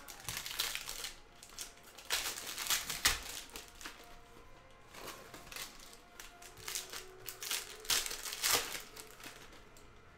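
Foil trading-card pack wrappers being torn open and crinkled by hand, in crackly bursts that are loudest about two to three seconds in and again around eight seconds in.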